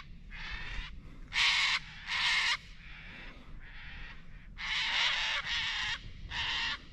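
Sulphur-crested cockatoos screeching: a series of harsh, raspy calls, a loud pair about a second and a half in and a run of four near the end, with fainter ones between.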